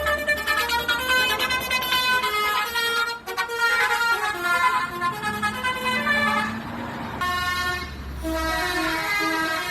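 Basuri telolet multi-tone bus horns playing quick tootling tunes, the notes changing several times a second, with a low engine rumble underneath. The tune changes about three seconds in and again about seven seconds in.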